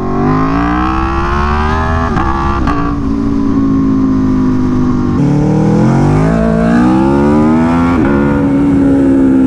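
Aprilia Tuono V4 1100's V4 engine, through an aftermarket SC-Project exhaust, pulling hard on a full-throttle roll-on from first gear, its revs climbing. About five seconds in the pitch drops sharply and then climbs again.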